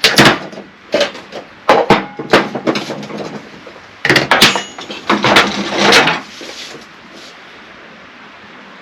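Knocks and clatter of tools and PVC parts being handled on a work table: a string of sharp impacts through the first six seconds, then only a low steady background.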